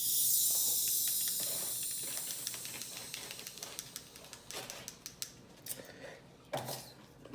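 Carbonated soda fizzing: a hiss full of tiny crackles that starts suddenly and slowly dies away over several seconds. A few short knocks and handling noises follow near the end.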